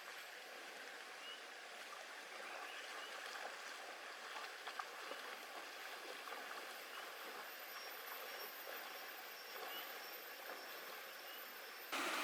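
A stream flowing steadily, heard faintly as an even rushing, with a few faint short bird chirps.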